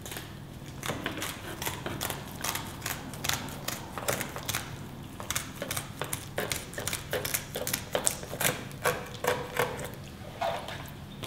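Kitchen scissors snipping through the frills (fin fringe) around the edge of a brill: a run of sharp clicking snips, two or three a second, busiest and loudest in the second half.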